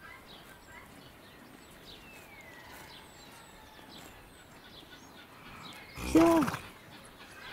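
Faint, scattered bird chirps in the background. About six seconds in, one short, loud pitched call rises and falls in pitch.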